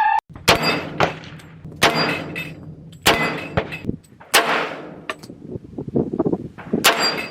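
Glock 22 Gen 5 .40 S&W pistol fired five times, about one shot every second and a quarter with a longer pause before the last. Each shot rings on briefly, and there are fainter clicks and knocks between the fourth and fifth shots.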